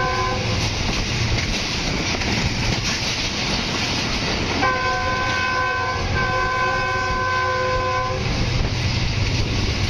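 Steady running noise of a passenger train heard from an open carriage door, with the diesel locomotive's multi-tone air horn giving a short toot at the start and then two long blasts about halfway through, the second one longer.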